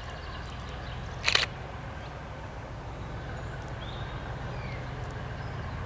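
Diesel locomotive approaching under power, its engine a steady low rumble that grows slightly louder. A brief sharp burst of noise about a second in is the loudest sound, and a couple of faint bird chirps come later.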